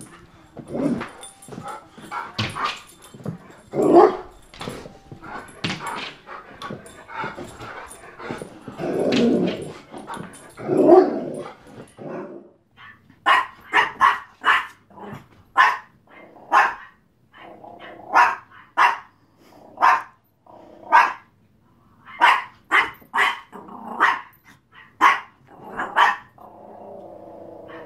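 Dogs barking at a television: irregular, deeper barks with growling for roughly the first half, then a small dog's sharp, high-pitched yaps, about one or two a second.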